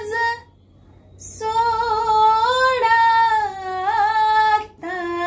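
A woman singing unaccompanied, holding long wordless vowel notes with small bends and turns in pitch. Short breath pauses come about half a second in and again just before the end.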